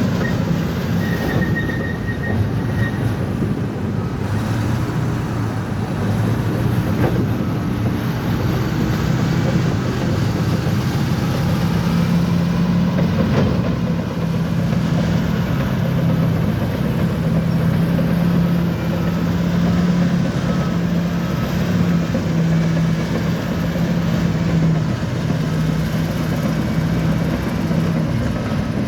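Bulldozer's diesel engine running steadily, a continuous low drone.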